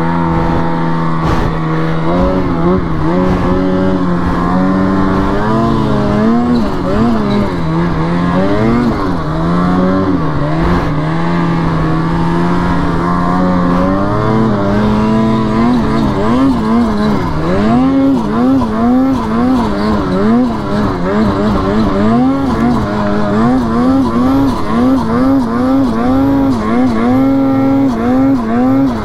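Ski-Doo Freeride 146 turbo snowmobile's two-stroke engine working hard in deep snow, its pitch rising and falling over and over as the throttle is worked on a climb.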